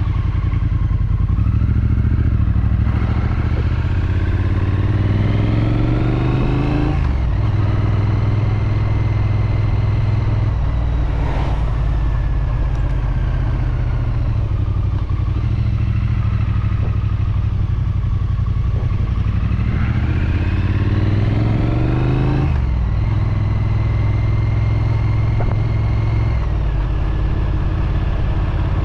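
Triumph Street Twin's 900 cc parallel-twin engine and exhaust heard from the rider's seat. The pitch climbs under acceleration and drops suddenly at an upshift about 7 seconds in and again near the 22-second mark. Between those climbs the engine holds steady or winds down slowly as the throttle is eased.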